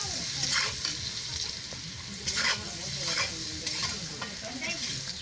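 Food sizzling as it fries in a pan, stirred with a few scraping strokes of a utensil against the pan.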